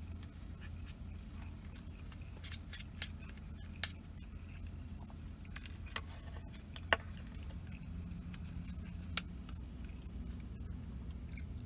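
Close-up eating sounds: chewing and small clicks of a plastic fork and chopsticks against takeout food and containers, with a sharper click about seven seconds in. Underneath runs a steady low engine hum.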